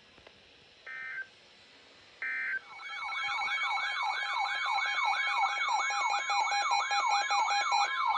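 NOAA Weather Radio alerting: two short buzzy bursts of digital SAME data tones, then, a little under three seconds in, a loud electronic alert siren starts, warbling in rising sweeps about two and a half times a second over a steady tone. It signals an incoming weather warning.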